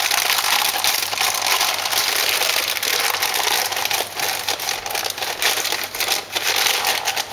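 Continuous crinkling and rustling of the plastic bag of Bisquick baking mix as it is handled and scooped into a measuring cup, with small irregular crackles throughout.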